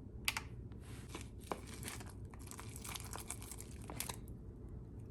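Crinkling and rustling of handled kitchen packaging or plastic, with a sharp click near the start, in two stretches that stop about four seconds in.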